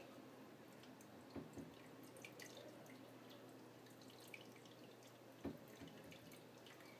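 Faint dripping and trickling of aquarium water over a low steady hum, with two soft knocks, one about a second and a half in and one later.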